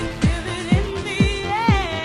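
Dance-pop background music with a steady kick drum about twice a second. A wavering lead melody comes in about a second in.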